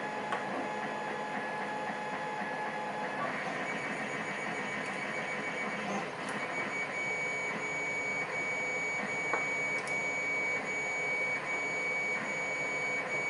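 Steady machine-like hum with several fixed tones, a high one coming in about three seconds in, and a few faint clicks.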